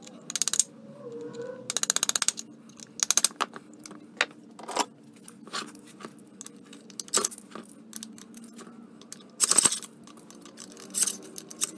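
A claw hammer tapping a drift to drive the flyweight pins out of a 1992 Polaris XCR 440's primary clutch, in short quick runs of light taps in the first few seconds. Scattered metal clinks follow as the pins and clutch parts are handled on the bench, with a louder clatter about nine and a half seconds in.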